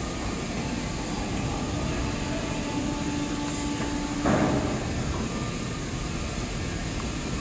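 Haitian injection molding machine working with its six-axis robot: a steady machine hum, a held tone for a second or so, then a brief louder rushing sound about four seconds in.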